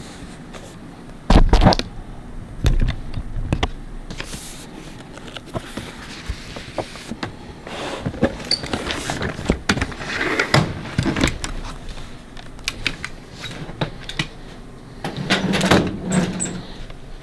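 Large bound record books being handled: a loud thump about a second in, then scattered knocks, clicks and rustling as the pages and books are moved.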